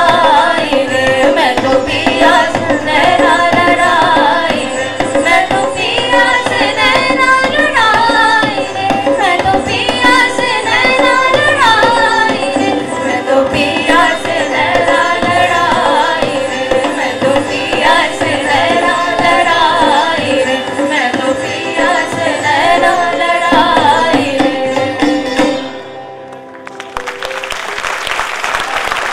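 Two women singing an Indian song into microphones, accompanied by tabla. The song ends about 26 seconds in, and the audience applauds near the end.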